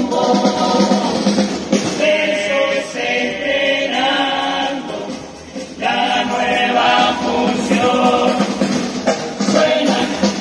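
Uruguayan murga chorus singing the saludo, the opening song of a murga show, in full-voiced group harmony, with the phrases breaking off briefly about halfway through. A light percussion beat runs beneath the voices.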